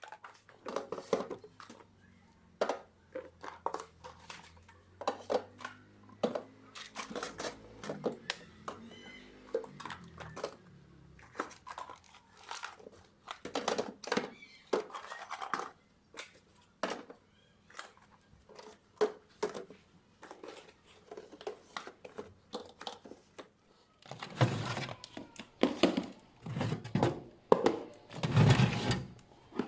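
Plastic bags and wrappings crinkling and rustling, with short knocks and clicks of containers being handled, as food from the refrigerator is sorted. The rustling comes in irregular bursts and turns louder and busier near the end.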